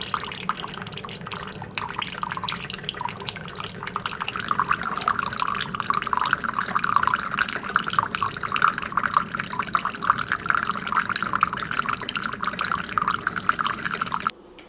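Mr. Coffee Iced + Hot single-serve coffee maker brewing hot coffee: a steady dripping, splashing stream of coffee into the cup, growing a little louder, then cutting off suddenly near the end as the brew finishes.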